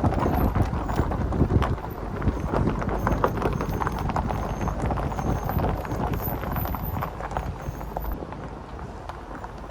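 A vehicle driving slowly on an unpaved road: a steady low rumble with a dense, irregular crackle of small clicks from the tyres, dropping a little in level about two seconds in.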